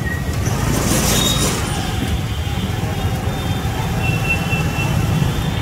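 Steady low rumble of street traffic, with the soft sizzle of a momo roll deep-frying in hot oil in a kadai.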